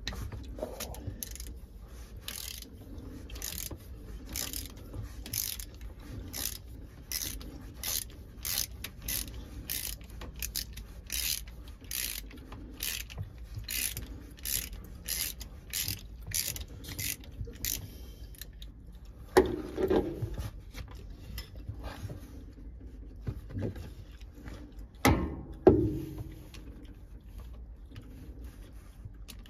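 Socket ratchet clicking in a steady run of short strokes, about two or three clicks a second, as a bolt is wound out on a Yanmar 2QM15 diesel; the clicking stops after about eighteen seconds. A couple of louder knocks follow later.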